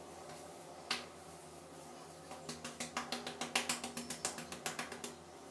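Fingertips rubbing and scratching through thick hair at the scalp: one crisp crackle about a second in, then a fast run of crackling rubs from a little before halfway until near the end.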